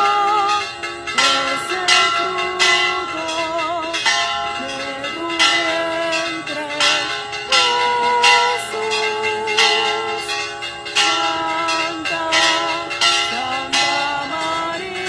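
Church bells ringing in a steady peal, struck over and over in a regular rhythm, over music that carries a slow melody.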